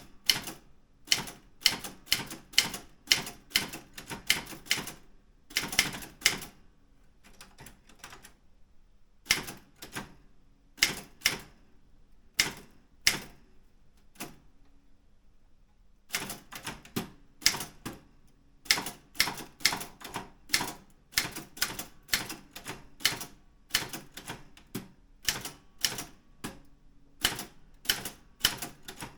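Keys of a Daro Optima M16 manual typewriter striking the platen in runs of about three to four sharp clacks a second. The typing pauses briefly twice along the way, about seven seconds in and again near the middle.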